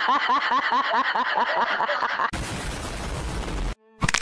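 Hearty laughter in rapid repeated bursts, about five a second, lasting about two seconds. It breaks off into a loud burst of static-like hiss that lasts about a second and a half and cuts off suddenly, followed by a brief gap and a couple of sharp clicks near the end.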